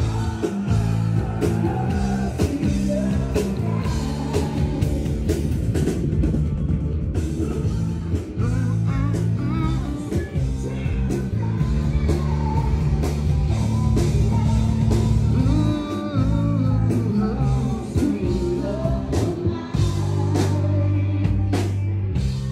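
Rock music with a singer, drums, bass and guitar.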